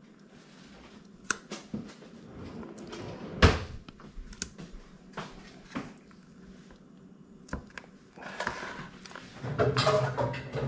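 Scattered knocks and clatter of food preparation on a kitchen counter, with one loud thump about three and a half seconds in.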